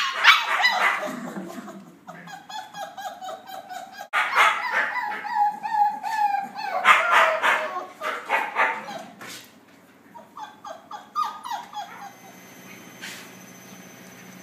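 Several husky puppies yipping and howling together: many short, high calls and some longer ones that slide down in pitch. The calls stop about twelve seconds in.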